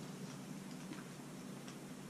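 Faint room tone with a low steady hum and a few soft, scattered ticks.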